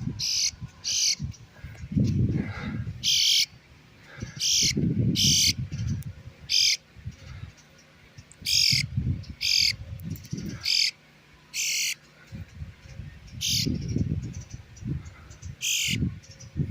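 Bluebirds giving short, sharp calls, about a dozen in irregular succession roughly a second apart. This is typical of parent birds agitated around a grounded fledgling. Low noise on the microphone comes and goes underneath.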